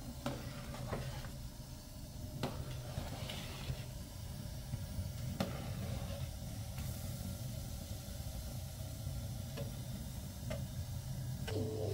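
Gas burner running with a steady hiss under a large steel pot while a slotted metal spoon stirs the liquid, with a few sharp clicks of the spoon against the pot.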